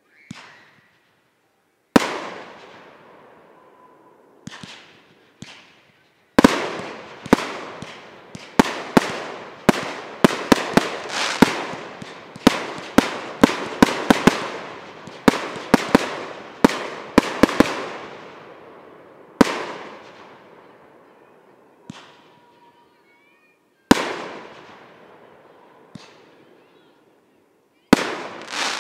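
Aerial fireworks shells bursting with sharp bangs, each trailing off in an echo. A few single bangs come first, then a rapid barrage from about six seconds in that lasts some twelve seconds, then single bangs again a couple of seconds apart.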